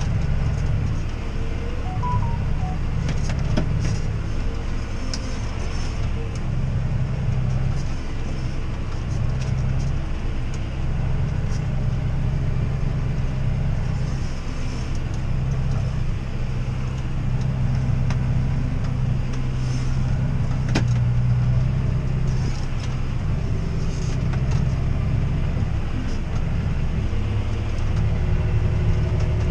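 John Deere 6R tractor's diesel engine running steadily under load, pulling a reversible plough through heavy soil, its deep hum shifting slightly in pitch now and then.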